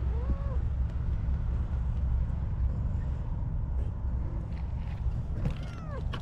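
A steady low rumble throughout, with two short meows from a calico cat, one just after the start and one near the end, each rising and falling in pitch.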